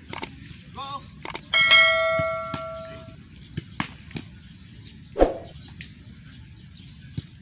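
A football strikes the metal goal frame with a loud clang that rings on for about a second and a half, the loudest sound here. Around it come sharp knocks and a heavier thump a little after halfway, balls being kicked and caught in goalkeeper practice.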